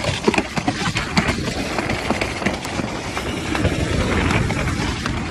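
Alpine slide sled running fast down its track: a steady rolling rumble and rattle, with scattered sharp knocks that come thickest in the first second and a half.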